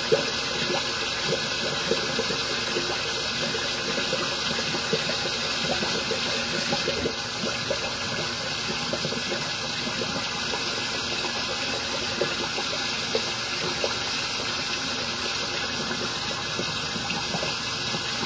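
Tap water running steadily into a sink, with short scraping strokes of a razor across lathered stubble.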